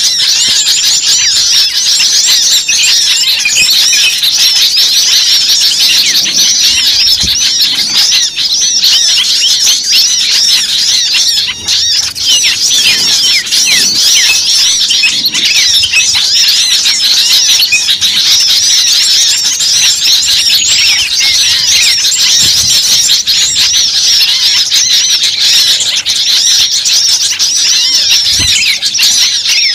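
Many small birds chirping and calling at once, a dense continuous chorus of short, high overlapping chirps.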